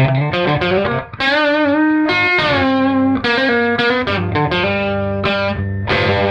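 Fender Stratocaster electric guitar played through a D₂O vacuum tube amplifier set clean with its controls flat, heard from the speaker cabinet. It plays a run of picked notes, with one held note shaken with vibrato about a second in.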